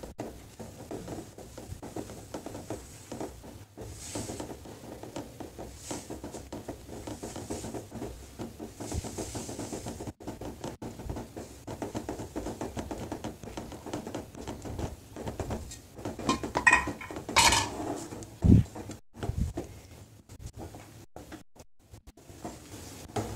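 A wooden spatula stirs semolina being poured into simmering water in a nonstick pan, with a steady, irregular pattering of grains and spatula strokes. A few louder scrapes and a knock come about three-quarters of the way through. The rava is stirred patiently on low flame so it does not form lumps.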